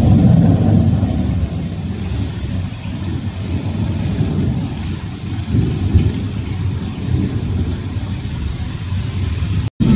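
Heavy rain pouring down in a steady, dense rush, loudest in the first second or so. The sound breaks off for an instant near the end.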